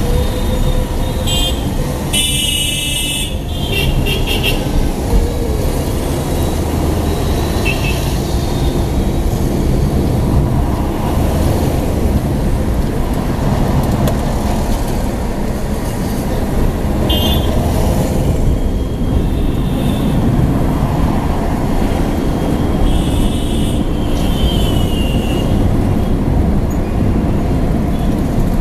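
Steady road and engine rumble heard inside a car driving through city traffic, with car horns honking several times: the loudest a long honk about two seconds in, then shorter toots scattered through, around eight, seventeen, twenty and twenty-four seconds.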